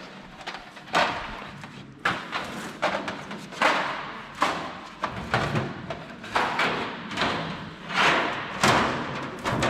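Irregular thumps and metallic bangs, about one or two a second, from a coil of black sheet metal being handled and its strip pulled out through the rollers of a long gutter-forming machine.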